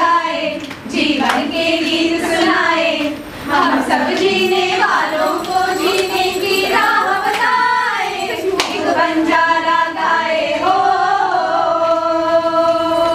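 A song sung by female voices, with long held notes near the end and a few sharp claps or knocks.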